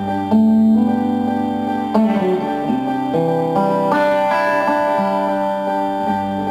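Instrumental music on a plucked string instrument, with sustained ringing notes that change every second or so.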